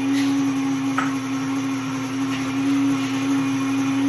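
WonderMill electric grain mill running steadily with a constant motor hum, grinding hard red wheat berries into flour, with a few faint ticks.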